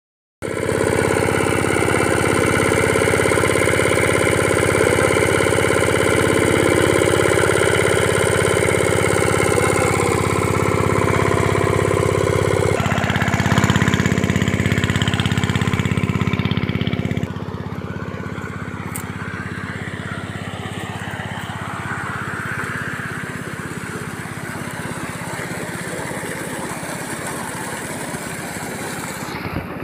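Diesel engine running steadily, driving a dewatering pump. The sound changes abruptly about thirteen seconds in, and again about seventeen seconds in, where it turns quieter and less even.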